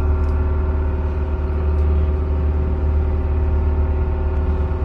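Fishing boat's engine running steadily: a loud, even low drone with a steady hum above it.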